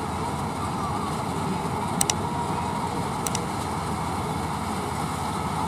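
Hind 999 combine harvester and tractor engines running steadily as a dense machine drone. Two pairs of sharp clicks stand out, about two seconds in and again a little over three seconds in.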